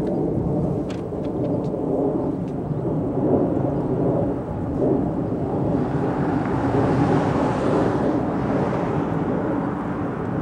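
Wind buffeting the camera's microphone: an uneven low rumble, with a brighter rushing that swells about six seconds in and eases near the end.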